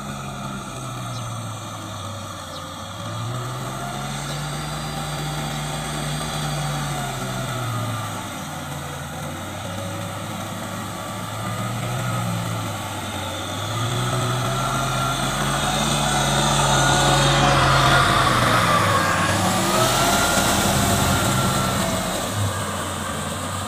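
Kubota M6040SU tractor's diesel engine working under plowing load, its pitch rising and falling every few seconds as the revs change. It grows louder for several seconds past the middle.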